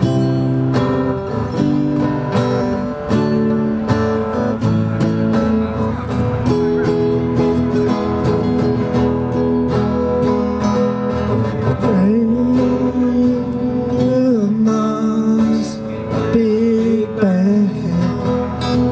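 Three acoustic guitars strummed together in a lively live song, with a voice singing over them in places, bending and wavering in pitch in the second half.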